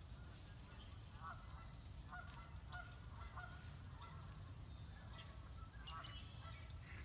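Wild turkeys calling faintly: series of short yelping notes repeated throughout, over a steady low rumble.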